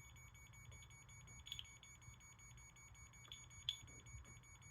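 Older household smoke alarm sounding faintly from a distance, a rapid, even train of short high-pitched beeps, weak and barely carrying. A couple of light knocks occur partway through.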